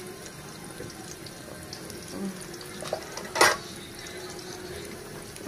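Akara bean fritters deep-frying in hot oil: a steady sizzle with light crackling. A single sharp click about three and a half seconds in.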